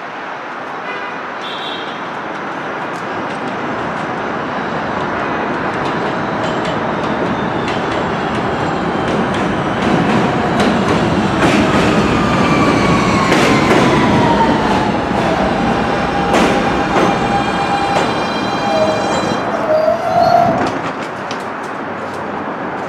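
New York City Subway R160 train pulling into the station and braking to a stop. It grows louder as it approaches, its wheels clacking over the rail joints, and its electric traction motors give a falling whine as it slows. A short brake squeal comes just before it stops.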